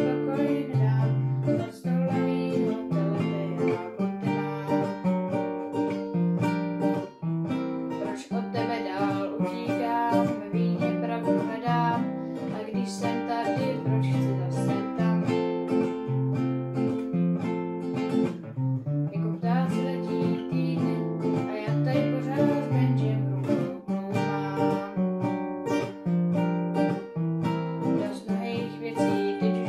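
Acoustic guitars playing a piece, plucked notes with low bass notes running steadily under a higher melody.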